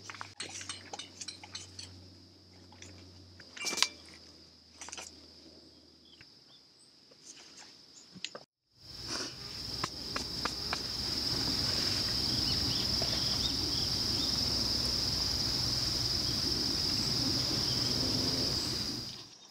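Outdoor insect chorus: a steady high-pitched trill, faint with a few small clicks for the first several seconds. After a break about eight and a half seconds in, it comes back much louder over a steady hiss of background noise.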